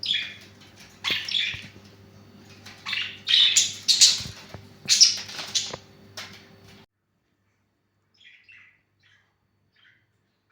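Pet lovebirds squabbling, with loud bursts of shrill squawks and chirps. About seven seconds in, the sound drops off abruptly, leaving only faint scattered chirps.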